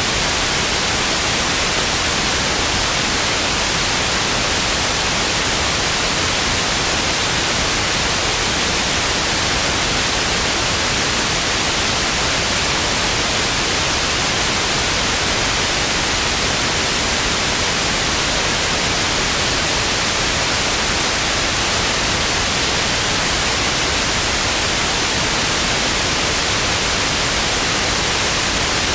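Television static: a steady, even hiss of white noise, brightest in the high frequencies, unchanging throughout.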